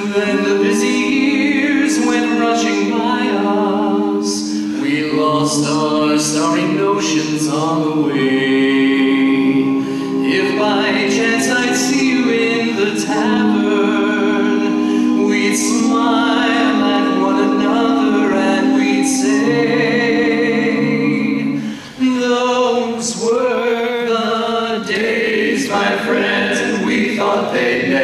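Barbershop quartet of four male voices (tenor, lead, baritone and bass) singing a cappella in close harmony, with a brief pause about three-quarters of the way through.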